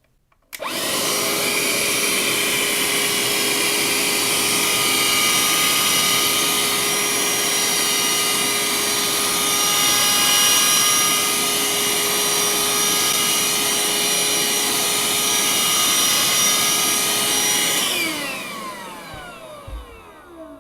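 Parkside PHSSA 20-Li A1 20V cordless handheld vacuum cleaner switched on and running steadily with a high motor whine while sucking up sawdust. About 18 seconds in it is switched off and the whine falls in pitch as the motor spins down.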